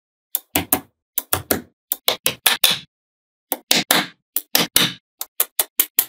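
Small magnetic balls snapping and clicking together as blocks of balls are set onto a ball structure: a quick series of sharp clicks, several a second in clusters of two to four, with a short pause about three seconds in.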